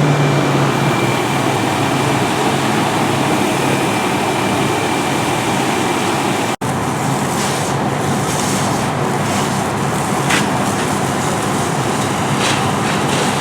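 Fire engine running at the scene, its engine and pump making a loud, steady rush of noise with a low hum. The sound drops out for an instant about halfway through, then carries on.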